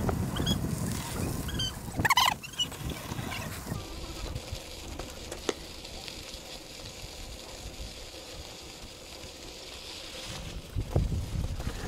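Wind buffeting the microphone of a camera on a moving mountain bike, with the rumble of the ride. A short high squeak comes about two seconds in. After that a quieter, steady hiss of tyres rolling over dry dirt follows.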